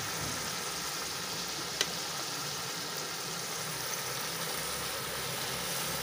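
Spiced tomato masala and whole potol frying in mustard oil in a wok: a steady sizzle, with a single sharp click about two seconds in.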